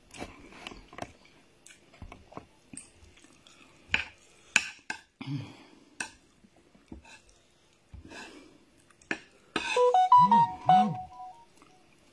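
A person eating rice with a metal spoon: spoon clinks and scrapes on a ceramic plate, chewing and lip smacking. Near the end a short electronic tune of a few stepped notes sounds, like a phone jingle, and is the loudest sound.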